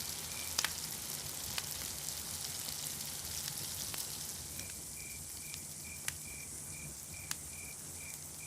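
Food sizzling as it fries, a steady hiss with scattered sharp pops. About halfway through a cricket starts chirping, an even repeating chirp at one pitch, about two to three times a second.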